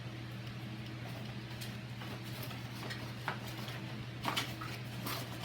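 Cardboard box and lock parts being handled and pushed back into their packaging: a few light clicks and rustles, over a steady low hum.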